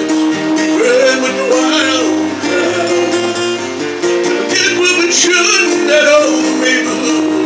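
A singer with acoustic guitar accompaniment: held, melodic vocal phrases over steadily played guitar chords.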